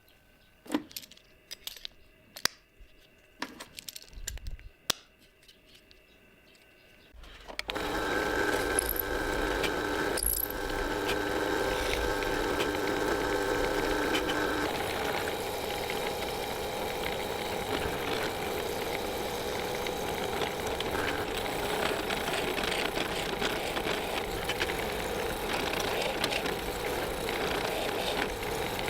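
A few light metallic clicks and taps, then about seven seconds in a workshop power tool's motor starts and runs steadily to the end.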